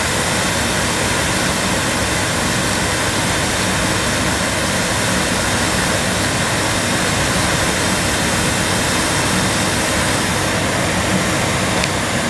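Early-1980s Hoover Sensotronic System 3 cylinder vacuum cleaner running at full suction: a loud, steady rushing sound with a faint low hum. It is kept on by holding the max button on its remote-control handle, because the handle's switching is faulty.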